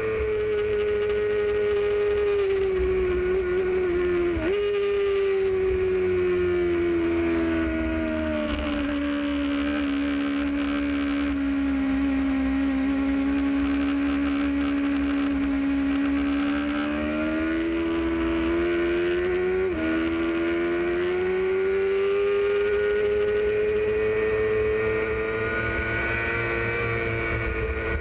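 Motorcycle engine heard from on the bike. The revs ease down through a curve, jump up sharply at about four seconds and again near twenty seconds as it drops gears, then climb steadily as it accelerates. Steady wind and road rush run underneath.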